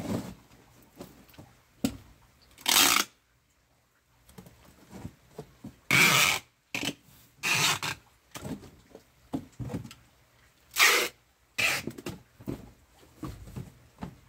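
Packing tape being ripped off the roll in about five long rasping pulls to seal cardboard boxes, with smaller knocks and rustles of the cardboard between the pulls.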